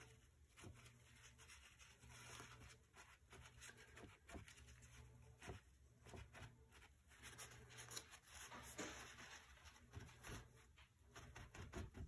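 Near silence: faint strokes and soft taps of a paintbrush on watercolour paper, over a low steady hum.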